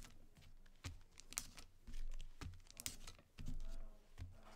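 Foil hockey card pack wrappers crinkling and tearing open by hand, in irregular crackles.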